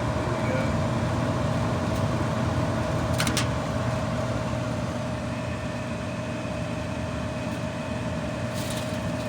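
A furnace motor running steadily, with a constant whine over a low hum, left running continuously in its manual setting. A brief click sounds about three seconds in.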